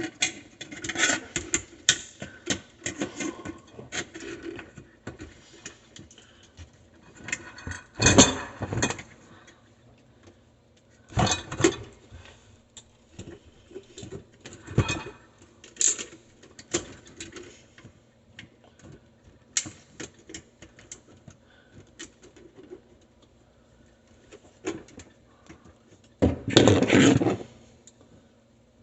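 Scattered clicks, knocks and rattles of tools and parts being handled during electrical work on a garbage disposal, with a louder noisy clatter about two seconds before the end.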